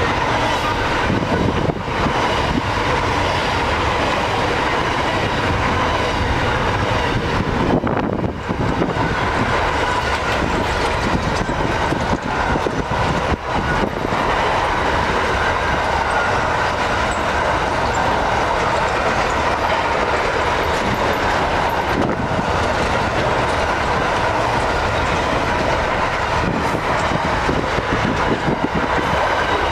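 Freight train wagons rolling past on the track with a steady, continuous rumble and rattle of wheels on rail.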